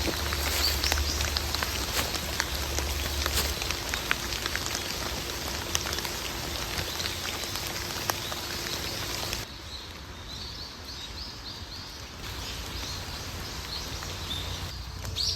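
Steady rain falling, with many sharp drops pattering. About two-thirds of the way in it cuts off suddenly to a quieter background with a string of faint, high chirps.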